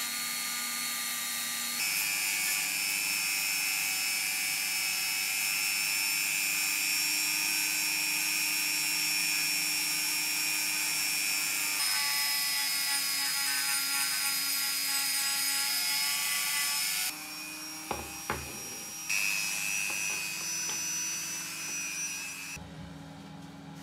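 High-speed handheld rotary tool with a small abrasive drum bit grinding rust off the cast-metal parts of an old hacksaw frame: a steady high-pitched whine. The whine drops out briefly past the middle, where there are two sharp clicks, comes back, then falls away near the end.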